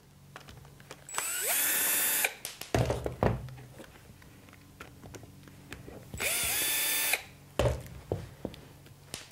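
Cordless drill/driver running in two bursts of about a second each, its motor whine rising as it spins up, backing out the screws that hold a construction line laser's plastic housing. Short knocks of handling follow each burst.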